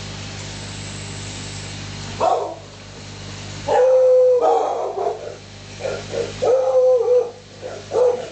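An animal's whining, howling cries, a run of drawn-out calls that starts about two seconds in, over a steady low hum.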